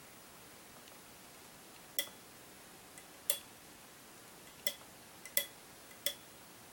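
Small metal parts clinking as they are handled and set down: five sharp, short clinks with a brief ringing, spread irregularly from about two seconds in.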